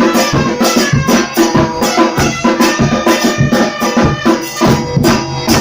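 Batucada percussion ensemble playing a steady drum rhythm, with held melodic notes sounding over the drums and a loud final stroke at the very end.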